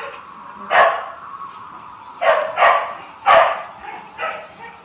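A dog barking: about five short, sharp barks at irregular intervals, the last one fainter.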